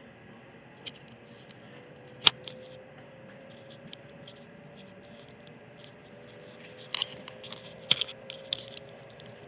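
Inside a Hokuriku Shinkansen E7/W7-series car pulling out of the station: a faint motor whine rises slowly in pitch over a steady hum as the train gathers speed. Sharp clicks cut through it, the loudest about two seconds in and a cluster of smaller ones in the last third.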